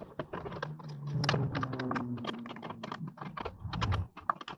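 Hand tools clicking and tapping, quick and irregular, while tightening the mounting hardware of an LED pod light. A low hum runs underneath until shortly before the end.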